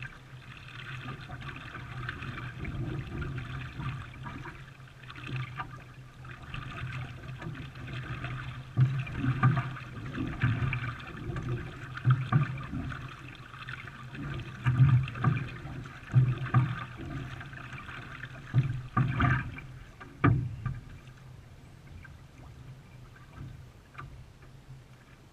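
A canoe or kayak being paddled: steady water hiss and sloshing, with irregular louder paddle splashes and knocks through the middle, dying down near the end.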